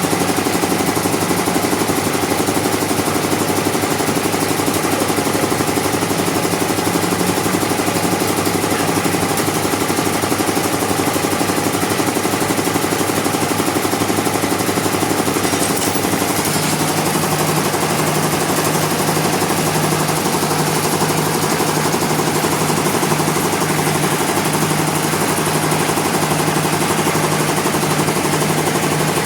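Sawmill engine running steadily under a continuous mechanical drone; its note shifts a little past halfway through.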